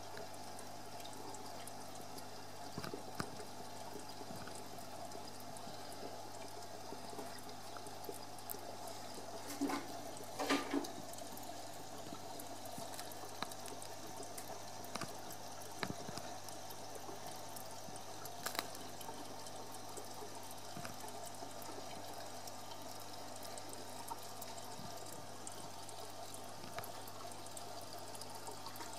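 Aquarium water trickling and splashing steadily over a low steady hum, with a short burst of louder clicks about ten seconds in.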